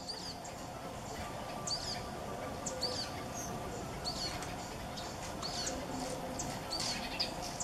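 Common chaffinch calling: short sharp chirps repeated about once a second over steady outdoor background noise.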